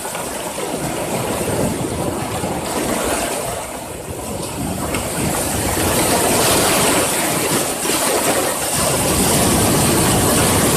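Sea surf breaking and washing onto a rocky shore, a steady rush that swells louder about halfway through.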